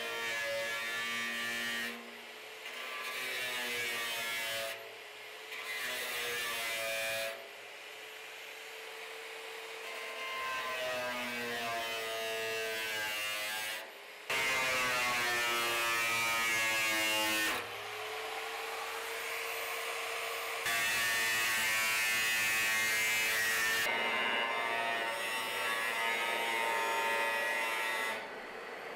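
Electric angle grinder cutting into a steel barrel, its motor whine sagging and rising as the disc bites into the metal, in several stretches that change abruptly.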